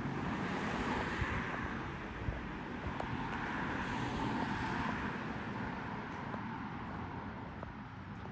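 A vehicle passing by, a broad rushing noise that swells and then fades away over several seconds.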